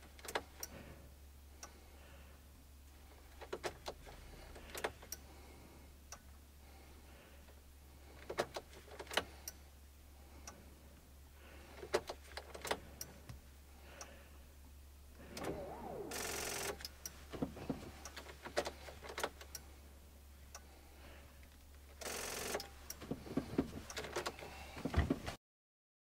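Scattered clicks, then two brief, weak electric whirs of about a second each, about two-thirds of the way in and again near the end. This is the starter of a VW Caddy Life TDI diesel failing to crank the engine in deep cold because the battery is dead.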